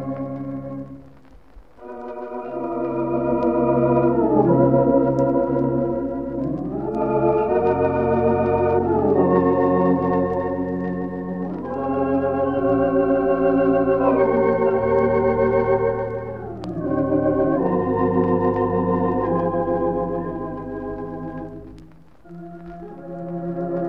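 Wurlitzer theatre pipe organ playing a slow ballad on a vintage recording: held, wavering chords that glide up and down into one another. The music thins briefly about a second and a half in and again near the end.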